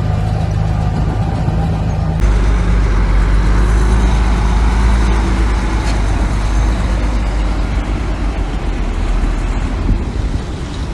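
Heavy diesel machinery engine running steadily under load. About two seconds in, the sound shifts abruptly to a deeper, louder drone.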